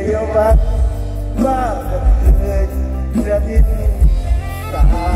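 Mor lam band music with a heavy bass beat and a melody line over it.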